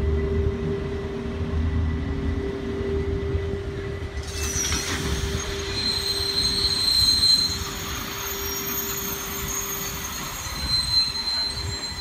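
Railpro ballast hopper wagons rolling past on the rails, wheels squealing in high-pitched tones from about four seconds in, loudest around seven seconds and again near the end.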